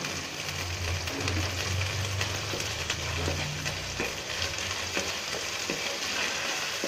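Onions, green chillies and ginger-garlic paste sizzling in oil in a nonstick kadai while the masala is fried down, stirred with a wooden spatula that scrapes and taps against the pan. A low hum underneath fades out about four seconds in.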